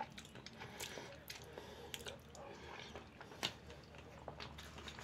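Faint, close chewing and mouth sounds of a man eating mashed potatoes and beef cutlets, with scattered small clicks and one louder click about three and a half seconds in.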